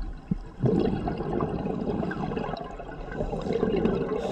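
Underwater bubbling and gurgling, most likely a scuba diver's exhaled air bubbles streaming from the regulator, starting about half a second in.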